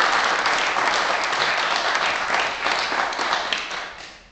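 Audience clapping, the applause dying away near the end.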